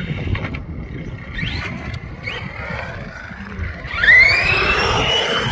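RC monster truck's motor whining in short rising bursts of throttle, then a long, loud rise in pitch about four seconds in that holds high as the truck accelerates, over a low rumble.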